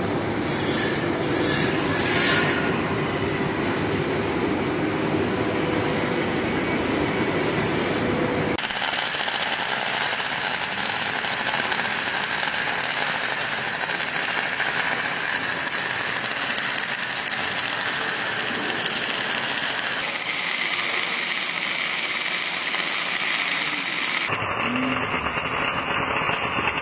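Automatic arc welding running steadily: a continuous noisy sound that changes character abruptly three times, about a third of the way in, about three-quarters in and near the end.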